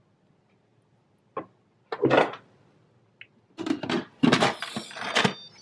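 Instant Pot's plastic lid being handled and fitted on the pot: a light click, a short scrape, then a run of knocks and clatter in the second half.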